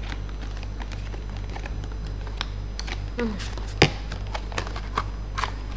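Thin plastic of a disposable lunch box and its clear lid clicking and crackling as it is handled and flexed, with one sharper snap about four seconds in.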